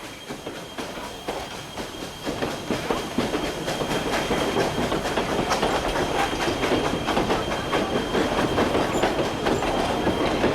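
A train rolling past, its wheels clattering over the rail joints. It grows louder over the first few seconds, then keeps up a steady clatter and rumble.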